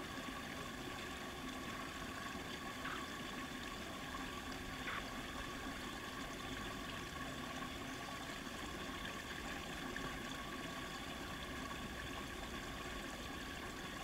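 Faint, steady outdoor ambience: a continuous hiss like trickling water, with two faint ticks about three and five seconds in.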